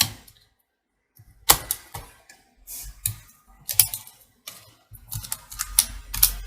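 Irregular sharp clicks and taps of hard parts and tools being handled on a workbench, coming quicker near the end.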